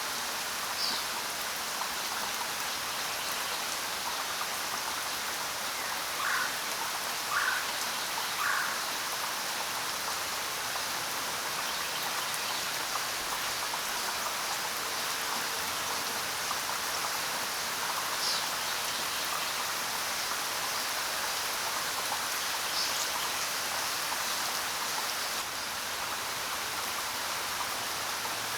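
Steady rain falling. A few short bird calls stand out over it: three about a second apart, and single ones here and there.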